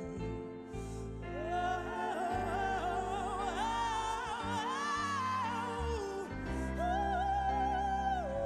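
Background music: a slow melody of long held notes with strong vibrato, sung by a solo voice, over sustained low notes.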